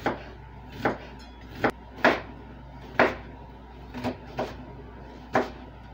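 Kitchen knife chopping an onion on a cutting board: sharp knocks of the blade striking the board, about eight of them at an uneven pace.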